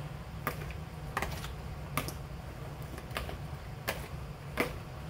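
Spoon and fork tossing chopped vegetables in a plastic mixing bowl: about seven sharp clicks of the utensils knocking as they turn the mix, at uneven intervals, over a steady low hum.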